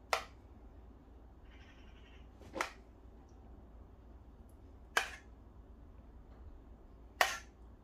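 A spoon tapping sharply against cookware four times, about two and a half seconds apart, as thick bechamel sauce is spooned out over the cannelloni.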